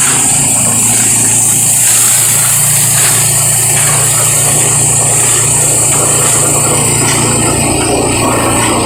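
Plastic grinding machine running steadily under test: a loud, continuous mechanical noise with a high hiss over a steady low hum.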